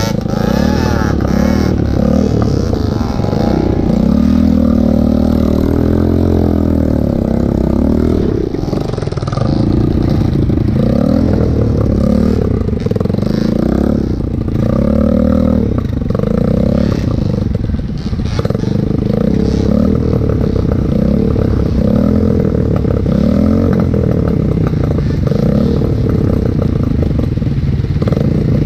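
Dirt bike engine revving up and down over and over, its pitch rising and falling every second or two, with some clatter.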